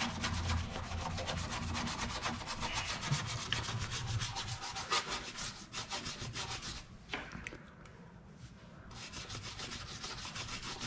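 Stiff hand brush scrubbing grime off the bare inner steel of a car door in quick back-and-forth strokes, with a short lull about seven seconds in.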